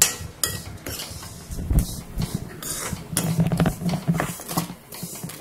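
A steel spoon scraping and clinking against a metal kadhai as ghee-roasted vermicelli is stirred and scooped out of the pan. The strokes are quick and uneven, with a denser patch of scraping past the middle.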